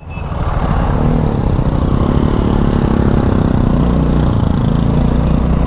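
Motorbike engine running steadily while riding, with wind rushing over the microphone; a steady low engine note comes in about three and a half seconds in.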